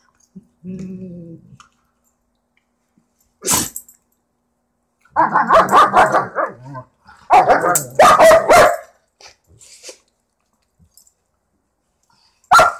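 Two German Shepherd-type dogs play-fighting: a low growl about a second in, then two loud bouts of rapid snarling and barking in the middle, and one sharp bark near the end.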